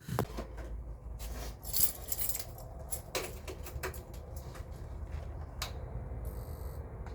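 Keys jangling with a few scattered clicks and knocks over a steady low rumble, the handling that comes just before the Super Cub 110's engine is started.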